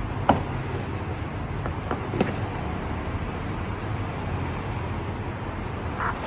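Steady background road-traffic noise, with two short sharp clicks about a third of a second and about two seconds in.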